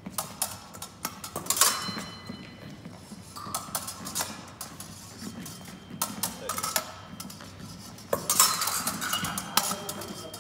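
Steel épée blades clicking and scraping against each other in quick, irregular exchanges, with louder flurries of clashes about a second and a half in and again about eight seconds in.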